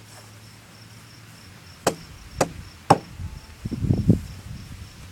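A potato being loaded into a potato cannon: three sharp knocks about half a second apart, then a brief run of duller low thumps.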